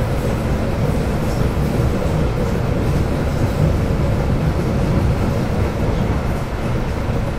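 Duewag/Kiepe B80D Stadtbahn light-rail car (built 1987) running, a steady rumble of wheels and running gear with a faint steady hum over it.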